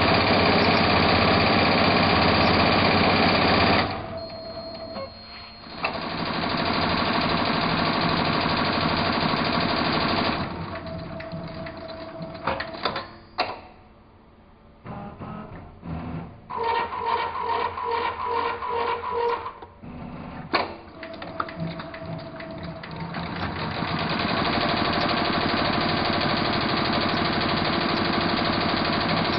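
Multi-needle embroidery machine stitching at speed, a dense, rapid mechanical chatter of the needle bars. In the middle it drops away to a quieter, uneven stretch with a few sharp clicks, then picks back up to full speed.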